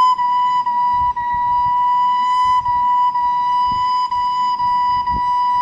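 Soprano recorder playing a single high C as a string of repeated notes with soft legato "lu" tonguing, each note re-articulated about every half second with a slight break in the tone.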